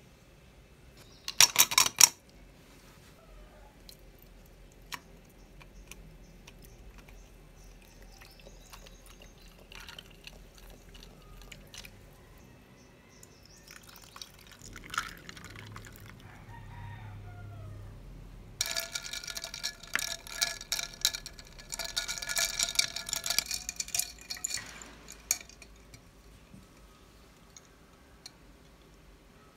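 Iced latte being made in a double-walled glass mug: a brief clatter near the start, coffee poured over milk and ice cubes, then several seconds of ice clinking and the glass ringing as the drink is stirred.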